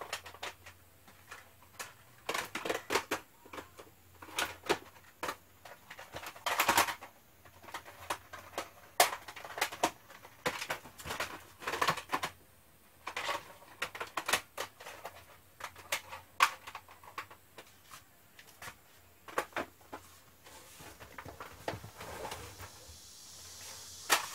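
Plastic cassette tape cases clacking in irregular clusters of sharp clicks as they are handled and pushed into place on a shelf.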